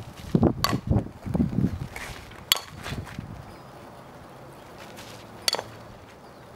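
Softball bat striking the ball in batting practice: three sharp cracks a couple of seconds apart, with dull thumps in the first second or two.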